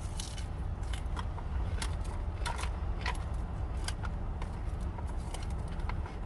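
Scattered light clicks and crackles of a plastic takeout container and utensils as someone eats a salad, heard over a steady low hum.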